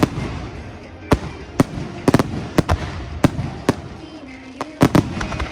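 Fireworks shells bursting in the air: about ten sharp bangs at irregular intervals, some in quick pairs, with a brief gap just after the middle, over background pop music.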